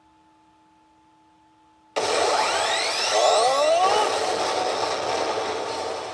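P Hokuto no Ken 9 Toushin pachinko machine's sound effects. A faint steady hum, then about two seconds in a sudden loud burst of effects with rising, whooshing sweeps that carries on.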